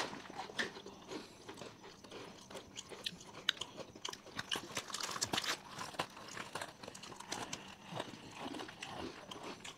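Three people biting and chewing Oreo chocolate sandwich biscuits: irregular crisp crunches and chewing sounds.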